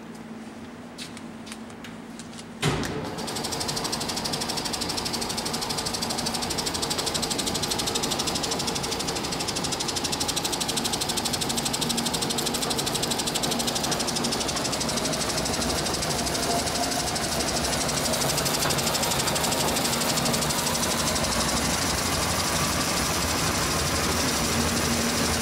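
DOALL 2613-2 vertical band saw switched on with a sharp clunk about three seconds in, then running steadily with a rapid mechanical clatter and hum from its drive. Its pitch creeps up partway through as the variable blade speed is raised toward top speed.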